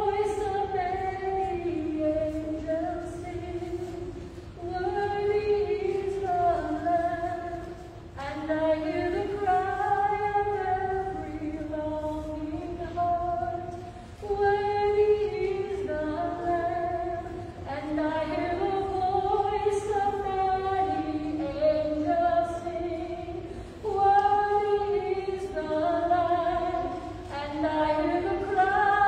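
A woman singing solo into a handheld microphone, in phrases of a few seconds each with held notes and short breaths between them.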